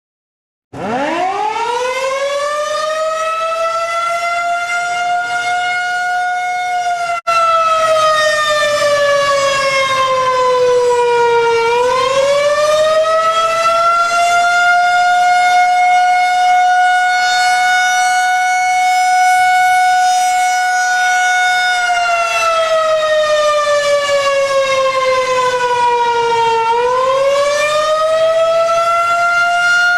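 Civil-defense warning siren wailing. It winds up about a second in and holds a steady pitch, then slowly falls and winds back up. It holds again and falls and rises once more near the end, cutting out for an instant at about seven seconds.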